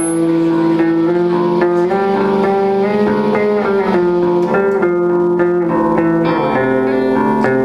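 Live band music with electric guitar to the fore, playing held notes that step from pitch to pitch without singing.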